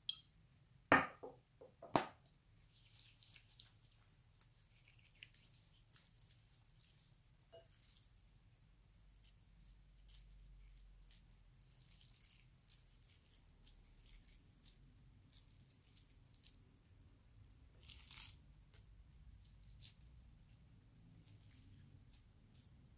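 Oiled hands squishing and rolling raw minced-pork tsukune mixture in a bowl: faint, quick wet squelches and ticks. Near the start, two sharp knocks about a second apart.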